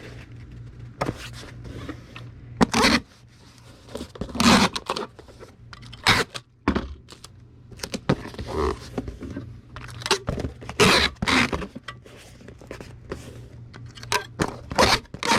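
Paper packing material and a cardboard shipping box being handled: irregular scraping, crinkling and rustling as the material is folded and tucked in around a boxed item, in a string of short, sharp bursts and a few longer ones.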